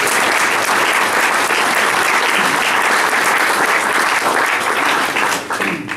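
Audience applauding, steady and sustained, fading out just before the end.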